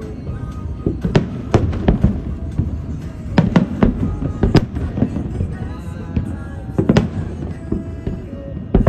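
Fireworks going off: about ten sharp bangs and cracks at uneven intervals over a low rumble, with music playing in the background.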